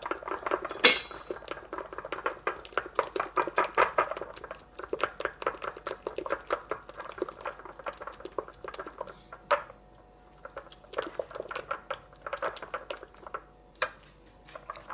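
Metal spoon clicking rapidly against a ceramic bowl while beating a runny egg, coconut and appam-batter mixture. There is a brief pause a little past halfway, and a sharper knock just after the start and again near the end.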